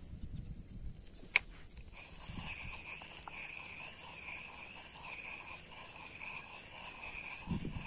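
Spinning reel: a sharp click about a second and a half in as the bail snaps shut after the cast, then the steady, pulsing whirr of the reel being cranked to retrieve the lure.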